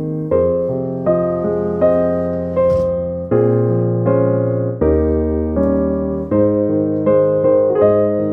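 Background piano music: soft chords struck at a slow, even pace, each one fading before the next.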